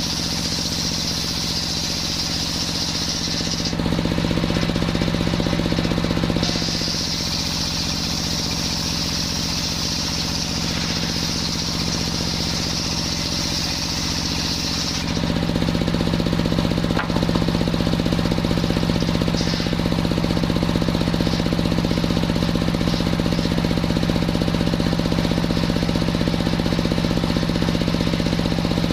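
Engine-driven circular sawmill running steadily while cutting coconut wood. Its sound changes about four seconds in, returns at about six seconds, and grows louder and lower about halfway through.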